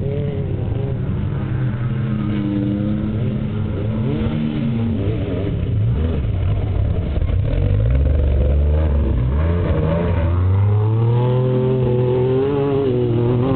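Off-road race truck engines revving and accelerating, their pitch rising and falling repeatedly.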